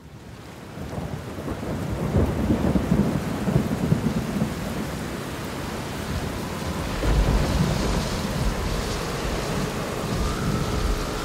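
Rain with rolling thunder, fading in from silence; the thunder rumbles swell about two seconds in and again about seven seconds in. A faint steady tone enters near the end and steps up in pitch.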